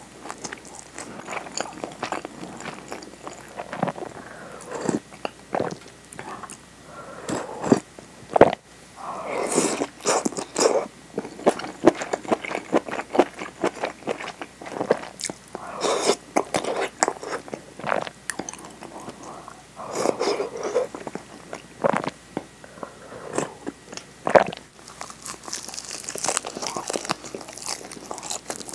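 Close-miked eating sounds: a person chewing and biting, with many sharp crunchy snaps. Food is picked from a bowl of miso soup, and near the end a nori-wrapped rice ball is bitten into, with a crisp high crackle.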